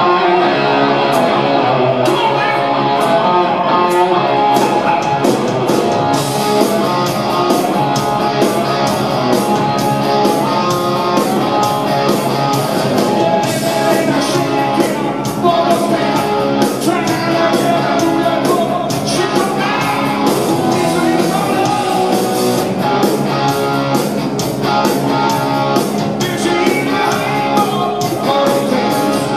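A rock band playing live on stage, with electric guitars, bass and drums and a singer's voice; the drums and cymbals fill out about six seconds in.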